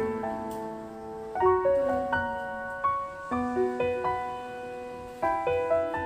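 Background piano music: a slow, gentle melody of single struck notes and chords that ring on and fade.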